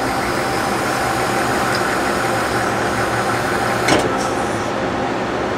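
Okuma LB25 CNC lathe's 12-position tool turret indexing over the machine's steady running hum, with one sharp clunk about four seconds in.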